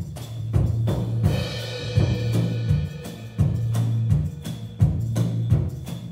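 Live percussion music: drum strikes in a steady repeating pattern over a strong sustained low tone. A ringing tone of several pitches swells about a second in and fades out around three seconds.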